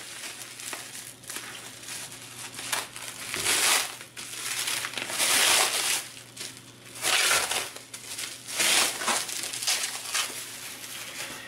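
Plastic bubble wrap crinkling and rustling as it is pulled open and slid off a small cardboard box, with several louder swells of crackle.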